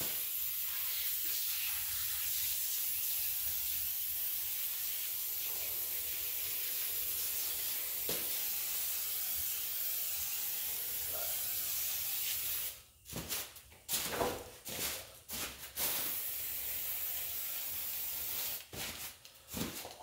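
Aerosol can of oven cleaner spraying onto a greasy engine to degrease it. It gives one long steady hiss for more than half the time, then a run of short spurts, another few seconds of steady spray and more short spurts near the end.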